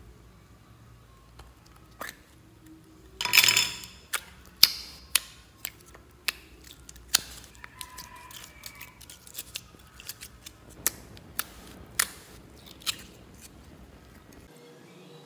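A slime-filled rubber squishy ball being cut open, with one loud crunching cut about three seconds in. This is followed by a run of irregular sharp, wet clicks and pops as the slime inside is squeezed out and pressed by hand.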